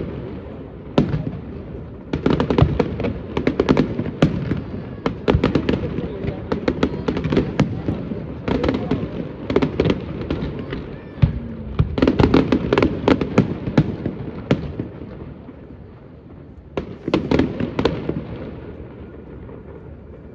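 Fireworks display: aerial shells bursting in waves of rapid sharp bangs and crackles over a low rumble of booms. The waves come about every three to four seconds, and the last volley, near the end, trails off into a quieter rumble.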